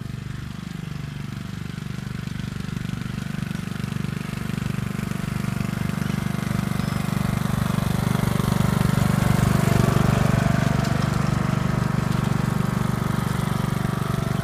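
Riding lawnmower engine running steadily, growing louder over the first two-thirds and peaking about ten seconds in.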